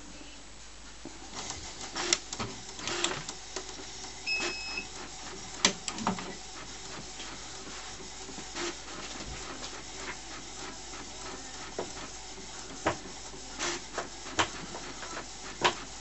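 HP Photosmart D5160 inkjet printer running its start-up sequence and starting to print. The print-head carriage shuttles back and forth over a steady mechanical whirr, broken by sharp clicks and clacks, with a short high tone about four seconds in. Paper begins feeding through near the end.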